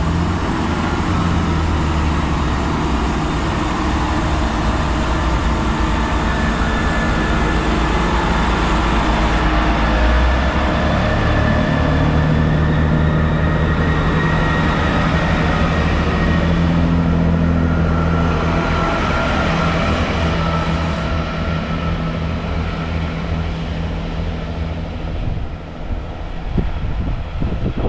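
GWR Class 166 diesel multiple unit departing, its diesel engines working hard as it passes close and pulls away, with running noise from the wheels on the rails. The engine note rises a little as it gathers speed, and the sound eases off slightly near the end as the train draws away.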